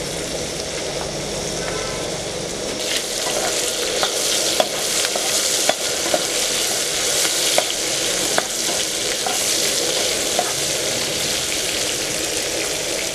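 Chopped vegetables and whole spices sizzling in hot oil in a kadai, with a spatula stirring them and clicking against the pan from about three seconds in.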